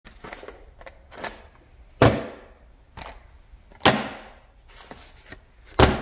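Three loud thuds about two seconds apart, each with a short ringing tail, and lighter knocks and clicks between them: objects being set down one by one on a hard tabletop.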